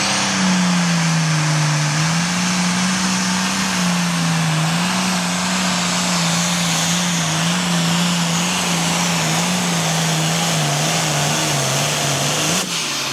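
International Harvester pulling tractor's turbocharged diesel engine running flat out under load as it drags a weight transfer sled, its pitch wavering slightly with small dips and surges. The sound breaks off sharply near the end.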